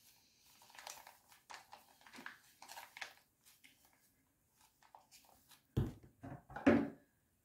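Mayonnaise squeezed from a plastic squeeze bottle: soft, uneven squirting and sputtering, then two louder dull knocks near the end.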